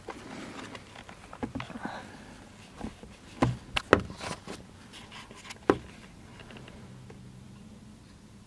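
Scattered sharp clicks and knocks inside a train carriage, loudest between about three and a half and six seconds in, over a faint low hum.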